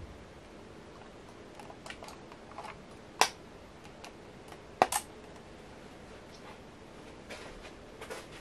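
Scattered short, sharp clicks, two of them louder about three and five seconds in, over a faint steady hiss.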